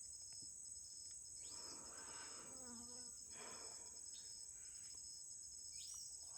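Faint, steady high-pitched chirring of insects, crickets among them, as an outdoor nature background.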